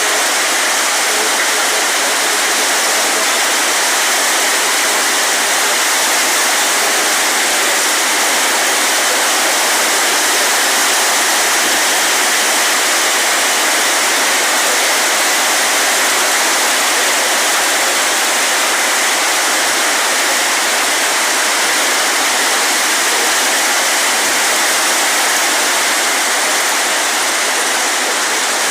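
Steady, even rushing of a heavy rainstorm, pouring without a break.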